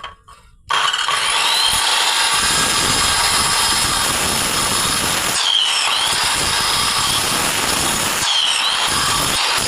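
Electric power tool running, starting abruptly under a second in and then holding steady. Twice its high whine dips in pitch and climbs back.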